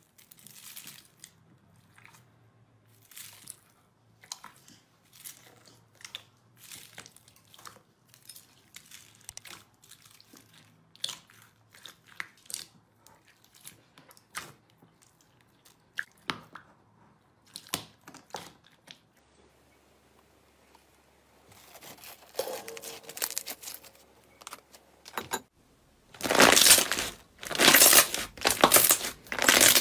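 Fingers pressing and squishing floam (clear slime packed with foam beads), giving scattered crackles and pops. Near the end, hands stretching a thick pink slime make a much louder, dense crackling, tearing sound.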